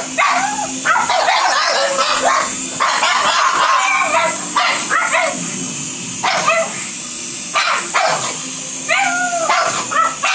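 Pugs barking and yipping in excitement at an indoor toy helicopter. The barks come thick and fast for the first five seconds or so, then as separate yips every second or two.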